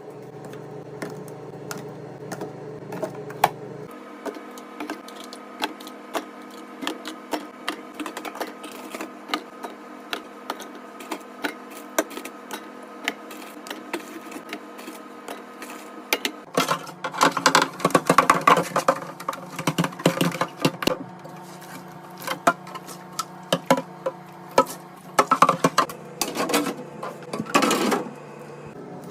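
Dense clicking, tapping and clattering of small items and plastic containers being handled, over a steady hum. The hum changes abruptly twice, about four seconds in and again a little past halfway, and the clatter gets busier and louder after the second change.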